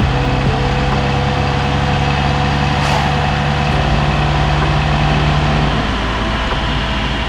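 Audi A4 B9's 2.0 TFSI turbocharged four-cylinder engine and road noise while driving at a steady speed: a steady low drone over a broad rush. One of its low tones drops away about six seconds in.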